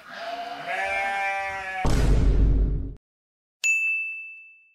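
Edited sound effects: a held pitched note for almost two seconds, then a short low whoosh, a brief silence, and a single bright ding about three and a half seconds in that rings and fades.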